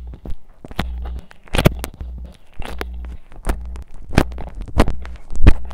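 Slime squished and pressed right against a phone's microphone: irregular wet clicks and pops, about two a second, over a low rumble from handling.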